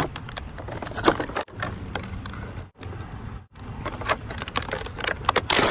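Stiff clear plastic clamshell packaging being handled and flexed, with a run of sharp crackles and clicks.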